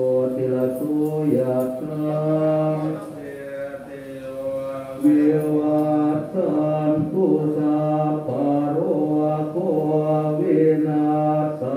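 Thai Buddhist monks chanting Pali verses together in unison, a steady recitation moving from held note to held note.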